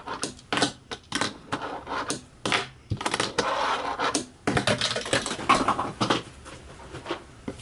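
Fingerboard being ridden on a wooden desktop: its small wheels rolling with a rough whir, between many sharp clacks of the board striking the wood. The sounds stop about six seconds in.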